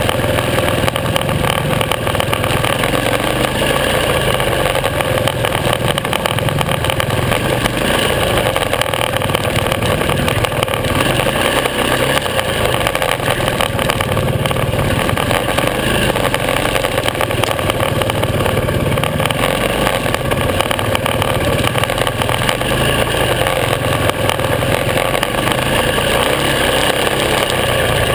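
Supermoto motorcycle engine heard from a camera mounted on the bike, running continuously with the revs rising and falling as it rides along a trail.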